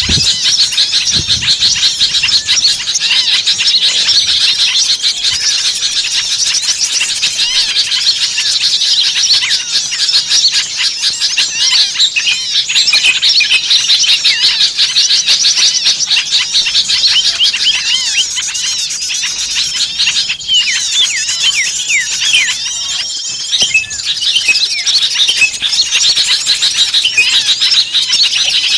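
A dense, continuous chorus of many small birds calling at once: rapid high chirps, trills and squeaky rising and falling notes, as in a bird-trapping lure recording meant to sound like an agitated flock of small songbirds.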